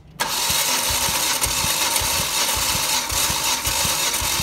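Starter motor cranking a Volvo 2.4-litre B5244S inline five-cylinder petrol engine for a compression test on cylinder five. It starts abruptly just after the beginning and turns over steadily with a rhythmic pulse about four times a second as each cylinder comes up on compression.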